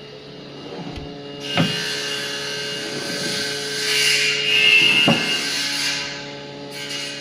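Power saw cutting wood: a rush of noise that starts with a knock, rises to a high whine in the middle and dies away, with a second knock along the way, over a steady hum.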